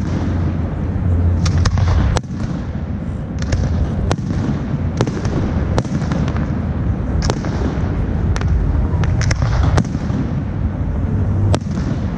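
Fireworks bursting: a string of sharp bangs and cracks, roughly one a second at uneven spacing, over a steady low rumble.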